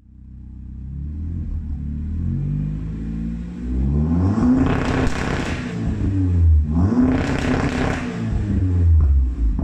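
Saab 9-5 Aero's turbocharged 2.3-litre four-cylinder idling, then revved twice, the pitch climbing and falling back each time, heard from behind at the exhaust.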